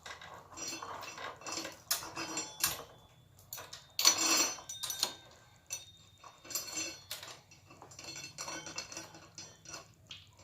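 Metal roller chain clinking and rattling as it is handled and fed through by hand, in irregular sharp clicks, loudest about four seconds in.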